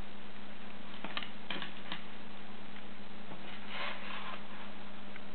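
Steady hiss and a low electrical hum, with three or four light clicks about a second in and a brief soft rustle near the middle: a bra and its cardboard tag being handled.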